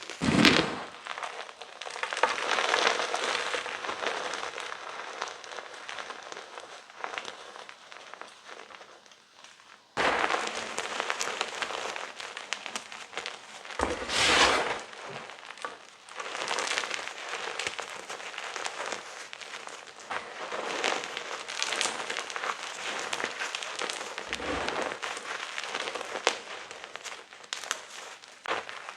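Blocks of gym chalk being crushed and crumbled: a dense, crunchy crackling made of many fine snaps, swelling louder near the start and again about 14 seconds in. The sound cuts off abruptly about 10 seconds in and starts again at once, louder.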